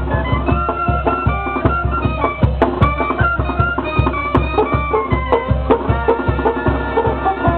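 Tamborazo brass band playing live: clarinet and trumpets carry the melody over a sousaphone bass line, with a steady drum beat.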